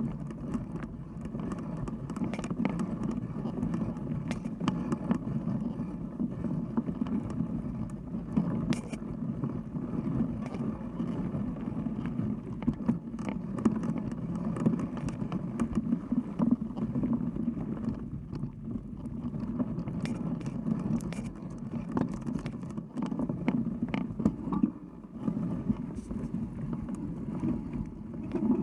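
Mountain bike rolling along a dirt singletrack: a steady low rumble from the knobby front tyre on the dirt, with frequent clicks and rattles over bumps.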